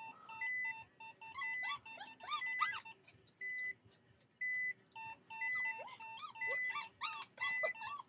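Two small dogs whining and yowling in rising-and-falling cries, in two bouts, against a car's reverse warning beeper. The beeper sounds steady repeated beeps in two pitches, the higher one about once a second.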